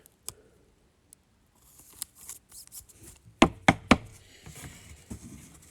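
Trading cards being handled on a table: light rustling, a single click near the start, then three sharp taps in quick succession a little past the middle.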